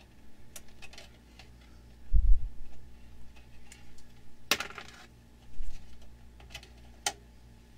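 Small metallic clicks and clinks of needle-nose pliers and wire being worked inside a steel amplifier chassis, with a low thump about two seconds in and a louder clatter about four and a half seconds in, over a faint steady hum.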